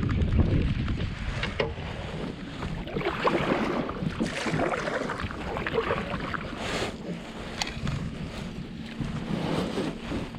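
Water splashing and lapping against a kayak hull, with wind buffeting the microphone and a few scattered knocks.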